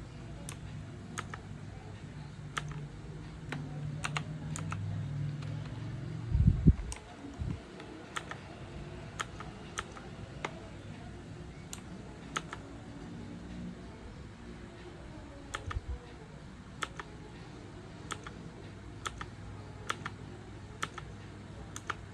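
Mechanical keyboard with clicky green switches: single keys pressed one at a time, each a sharp click, spaced about half a second to a second apart over a low hum. A low thump about six and a half seconds in is the loudest sound.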